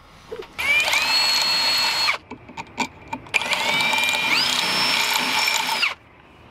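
Cordless drill boring holes through aluminium sheet in two runs: each spins up, holds a steady whine for a second and a half to two and a half seconds, then winds down, the second stepping up in pitch partway through. The holes are chain-drilled around a marked circle to cut it out in place of a hole saw.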